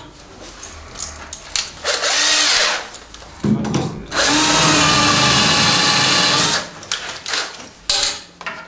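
Cordless drill with a twist bit boring a screw hole through the two clamped 18 mm side panels of kitchen base units. The motor spins up briefly with a rising whine, then drills steadily for about two and a half seconds and stops, with a short blip of the trigger near the end.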